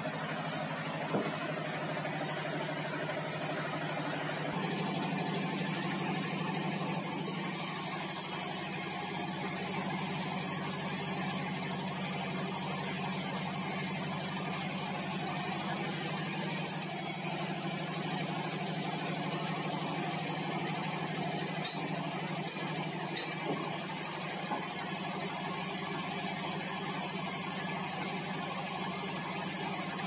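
Band-saw headrig of a sawmill running steadily with a low, even drone while it saws meranti timber. A high hiss joins in about seven seconds in and carries on, with a brief break midway.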